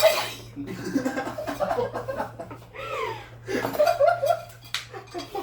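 Several young women laughing and giggling, with squeals that rise and fall in pitch.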